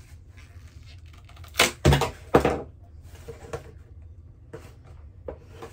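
Small plastic cosmetic pot (a Jecca Blaq cream shimmer pot) being forced open: three loud, sharp cracks close together about two seconds in, with fainter clicks of handling after them.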